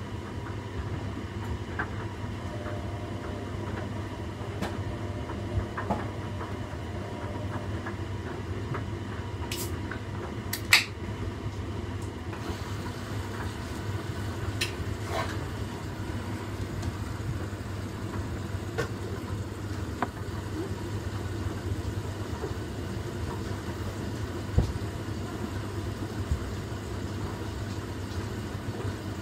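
Washing machine running with a bed in its drum: a steady low hum from the motor and turning drum, with a few sharp knocks. The loudest knock comes about ten seconds in and another near twenty-five seconds.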